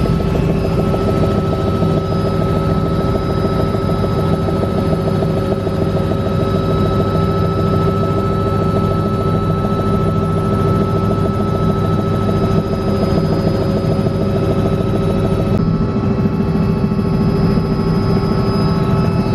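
Robinson R66 turbine helicopter heard from inside the cabin: a loud, steady drone of rotor and engine with a thin steady whine above it. The tone shifts slightly about three-quarters of the way through.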